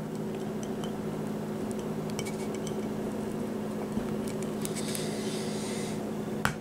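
A glass wine bottle wrapped in an inked rubber-band stamp, rolled by hand across a sheet of paper on a metal tabletop: faint rustling and small glassy clinks over a steady low hum, with one sharp click near the end.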